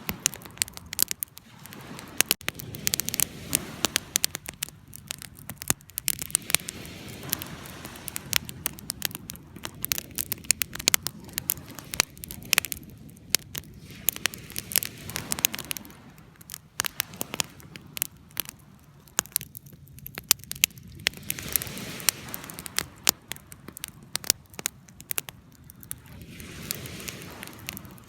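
Wood fire crackling: irregular sharp pops and snaps over a low rushing of flames that swells and fades every few seconds.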